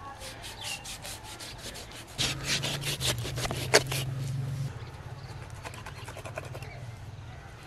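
Large knife sawing back and forth through a buffalo head's hide and flesh to split it in two: a run of rasping strokes, about three or four a second. For a couple of seconds in the middle a steady low hum comes in, with one sharp click.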